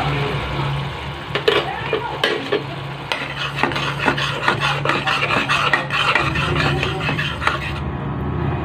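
A spatula stirring spice powder into oily onion masala, scraping the pan in a quick run of strokes from about a second in until near the end, over a steady low hum.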